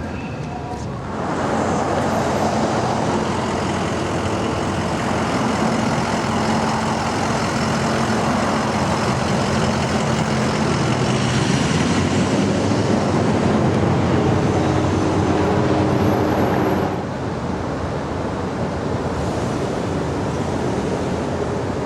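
Road traffic: a motor vehicle running close by with a steady engine hum under heavy road noise. It grows loud about a second in and drops back to lighter traffic noise around seventeen seconds in.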